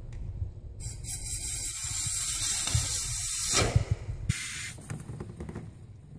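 Can of Great Stuff Fireblock expanding foam spraying: a long hiss of about three seconds, then a short second squirt about half a second later, over low rustling and knocks from handling the can.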